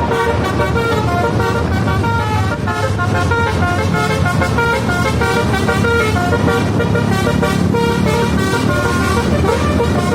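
Basuri telolet multi-tone bus horn playing a quick tune of short notes that change pitch every fraction of a second, with the bus's engine running low underneath.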